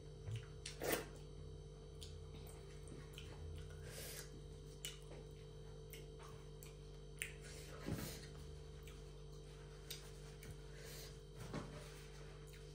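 A person eating close to the microphone: scattered wet chewing clicks and lip smacks, with a couple of louder smacks about a second in and again near eight seconds, over a faint steady electrical hum.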